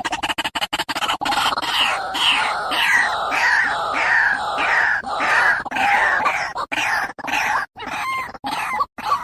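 White-breasted waterhen (ruak-ruak) calling: a fast rattle of sharp pulses for about the first second, then a long run of harsh repeated notes, about three a second, each falling in pitch, breaking into choppier notes near the end.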